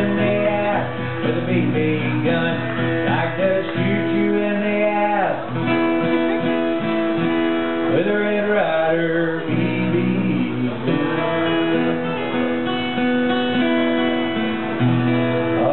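Steel-string acoustic guitar playing a song's instrumental passage, held chords and single notes ringing at a steady level.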